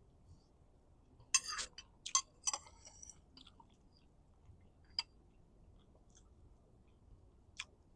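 Faint crisp clicks and crunches: a quick cluster about a second and a half in, then single sharp clicks about five seconds in and near the end.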